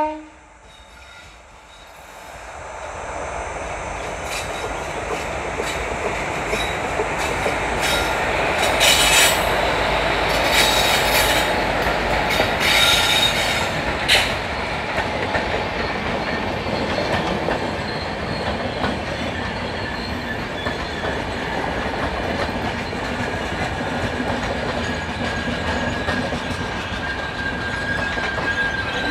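A WCAM-3 electric locomotive and its passenger coaches rolling past close by while diverting through a turnout. The rumble of wheels on rail swells as the train comes in. A run of sharp clicks comes as the wheels cross the points, from about nine to fourteen seconds in. From about twenty seconds in, a thin high wheel squeal rises from the curve as the coaches stream by.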